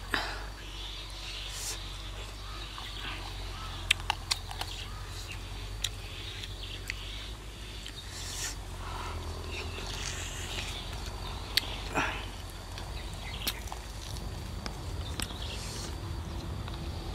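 Scattered sharp clicks and crackles of a cooked duck being torn apart by hand, over a low steady hum.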